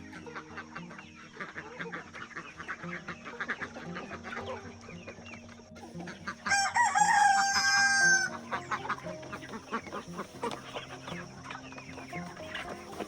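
Chickens clucking throughout, with a rooster crowing once, loud and long, about six and a half seconds in.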